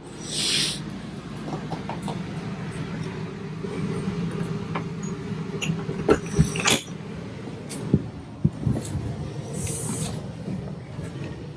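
A steady mechanical hum with scattered clinks and knocks, and a brief hiss near the start and again near the end.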